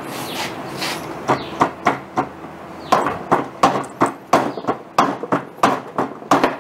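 A mallet tapping a thin metal rod to drive the rubber dust boot of a brake caliper guide pin into its caliper bracket: a steady run of sharp knocks, about three a second, starting about a second in and getting louder partway through.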